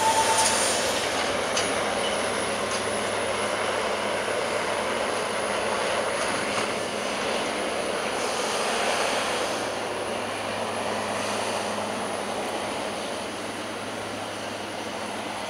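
Freight train rolling past: wagons and an SBB Cargo locomotive running steadily over the rails, with a brief wheel squeal right at the start and a few clicks in the first couple of seconds. The rolling noise eases slowly as the train draws away.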